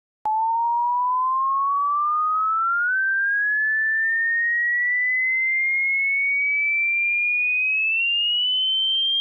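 A single pure sine test tone of a hearing test starts abruptly just after the start and glides slowly and steadily upward in pitch at an even loudness: a frequency sweep for checking how high the ear can hear.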